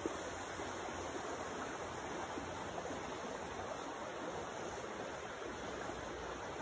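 River water rushing over rapids and rocks, a steady, even rush.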